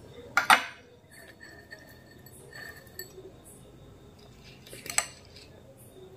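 Metal spoon clinking against glass serving bowls. There are two sharp clinks, about half a second in and about five seconds in, with fainter taps and brief ringing between them.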